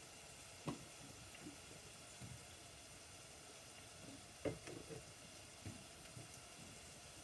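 Scattered knocks and clunks of a wooden kitchen cabinet and the jars in it being handled, the two loudest about half a second and four and a half seconds in, over a steady low hiss.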